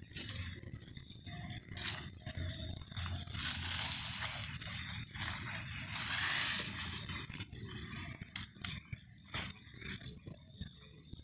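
Grass and leafy plants rustling and scraping against the phone as the hunter pushes through them, with scattered clicks of handling; the rustle swells loudest about halfway through.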